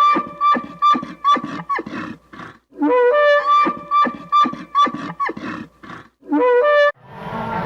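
An animal's loud call, given three times over: each begins with a rising note and breaks into a run of short notes, about three a second, that alternate between high and low.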